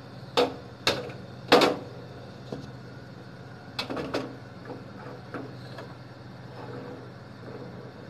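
Metal spoon and a kadhai (wok-like pan) heaped with cream clinking and knocking against each other and the gas stove as the pan is handled and set on the burner. There are three sharp knocks in the first two seconds and a cluster about four seconds in, over a steady low hum.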